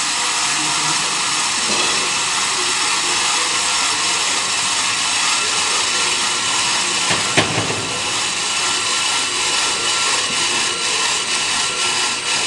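On-car brake lathe turning a brake disc on the car's hub: a steady hiss of the cutting tool shaving the disc face, with a faint whine underneath. A single sharp click comes about seven seconds in, and a faint regular pulsing sets in toward the end.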